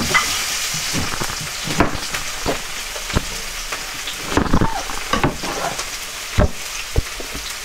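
Chicken breast frying in a pan with a steady sizzle, over which a kitchen knife strikes a cutting board in about eight irregular chopping strokes.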